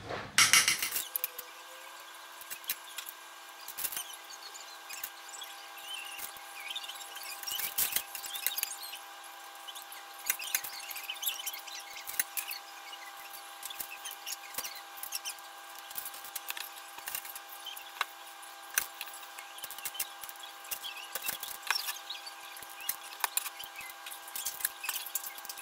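Metal spoons scraping and tapping as cookie dough is scooped and dropped in mounds onto a parchment-lined baking tray, a scattering of small clicks and scrapes. A steady hum runs underneath from about a second in.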